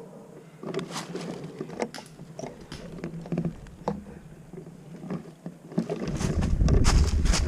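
Irregular rustling and crunching, like movement through dry leaves or brush. From about six seconds in, wind buffets the microphone with a low rumble.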